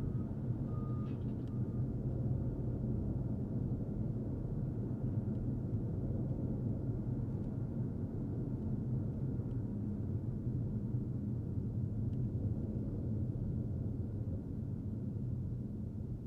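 Steady low road and engine rumble of a car driving along a city street. A few short, high electronic beeps sound within the first second and a half.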